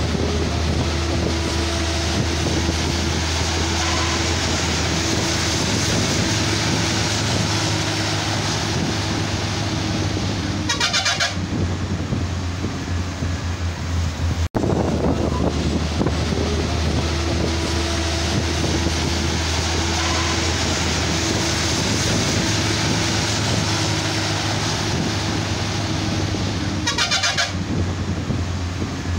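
Heavy cargo trucks' diesel engines running with a steady low drone and road noise. A brief burst of a rapidly pulsing horn sounds twice, about 11 seconds in and again near the end.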